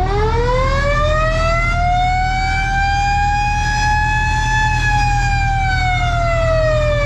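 Federal Q2B mechanical fire siren winding up, its pitch rising for about four seconds, then coasting back down. A steady low rumble runs underneath.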